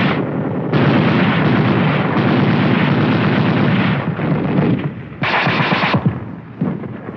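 Infantry gunfire on an old film soundtrack: a sustained stretch of rapid shots lasting about three seconds, then a lull, then a shorter, sharper burst near the end.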